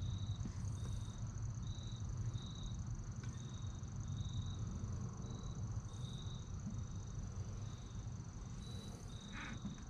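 Outdoor ambience: a steady low rumble with faint, high-pitched insect chirps coming and going irregularly over a thin, steady high tone.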